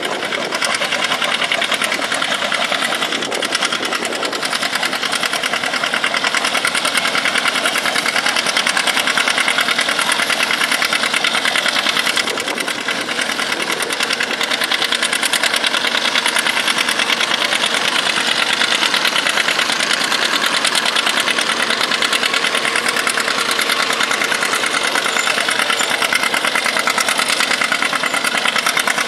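John Deere pulling tractor's engine working hard under full load as it drags a weight-transfer sled. It runs steadily with a fast, even pulsing beat.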